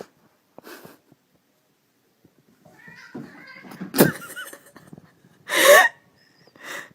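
A cat meows once, loudly and with a bending pitch, about five and a half seconds in. A sharp knock comes a little earlier, about four seconds in, among softer rustling.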